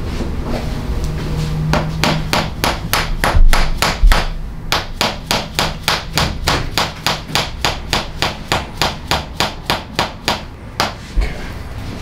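A mallet rapidly tapping a rod held against a patient's back, a percussive chiropractic adjustment. A few uneven knocks give way to a fast, even run of about six strikes a second, which stops shortly before the end with one last tap.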